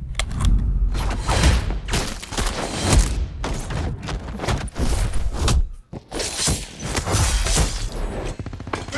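Layered action sound effects: a dense run of crashes, shattering and heavy thuds with deep booms, in quick succession, breaking off briefly about six seconds in before picking up again.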